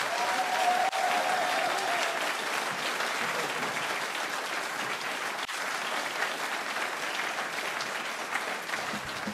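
Audience and panel applauding steadily after a speech, many hands clapping at once.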